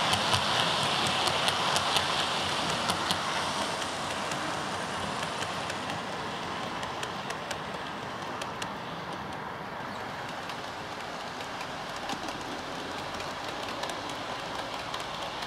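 OO-gauge model train running on the layout's track: a steady rolling hiss with rapid, irregular clicks from the metal wheels over the rail joints. It is loudest at first and grows quieter over the first few seconds as the coaches run past and away.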